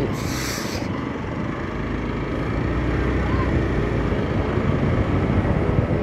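Riding noise on a moving Hero motorcycle: a steady rush of wind and road noise with the engine running underneath, and a short hiss right at the start.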